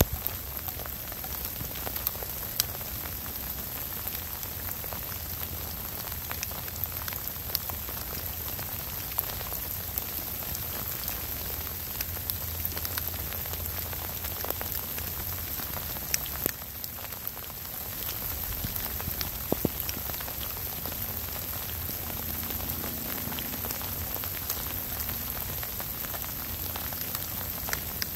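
Steady rain falling, with scattered individual drops ticking sharply close by.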